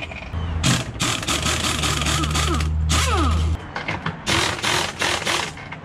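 Pneumatic air ratchet running in short bursts as it works bolts on an outboard motor's mounting, with a steady low hum underneath for the first three and a half seconds.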